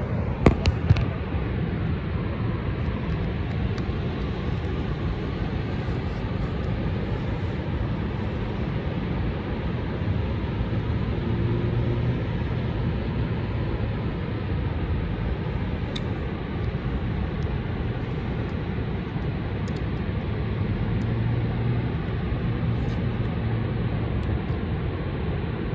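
Shortwave radio's speaker giving out steady static hiss, with no voice coming through: the broadcast signal has faded into the noise. A couple of sharp clicks come just after the start.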